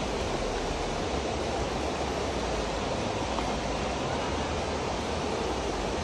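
Steady, even rush of running water from a stream or waterfall.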